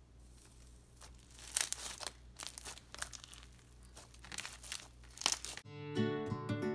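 Irregular crinkling and crackling as a thin sheet of gold leaf is pressed and squished into slime by hand. Music starts near the end.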